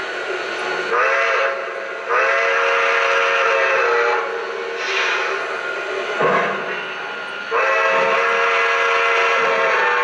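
O-gauge model steam locomotive's electronic chime whistle, a chord of several notes, sounding a short blast and then two long blasts, with a steam hiss between them.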